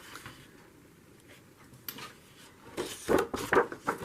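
Sheets of paper being handled, with a single light tick about two seconds in and a short run of paper rustling and crinkling near the end.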